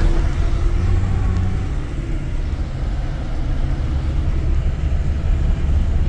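Heavy diesel engine running with a steady, low, pulsing rumble, dipping slightly in level midway.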